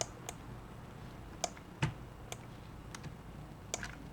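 Sparse, irregular clicking of a computer mouse and keyboard, about eight short sharp clicks, two close together near the end, over a faint steady hum.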